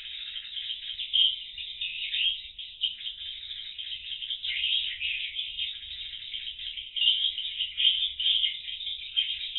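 Swiftlets twittering: a dense, continuous stream of high chirps with no pauses.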